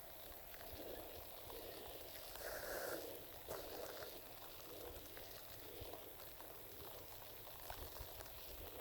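Light rain falling: a faint, steady patter of drops with scattered small ticks.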